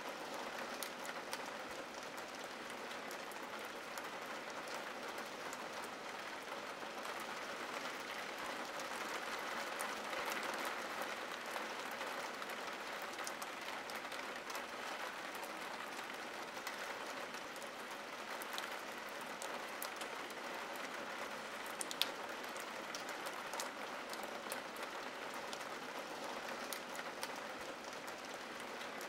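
Steady rain on window glass: an even patter with scattered individual drops tapping, and one sharper tap about two-thirds of the way through.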